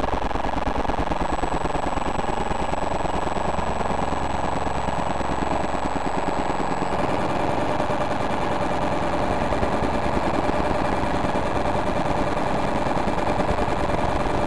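Infrared signals from several TV remote controls turned into sound by a light-to-sound converter, layered into a dense, steady stream of rapid buzzing pulses. A thin high tone sits over it from about a second in and cuts off about halfway through.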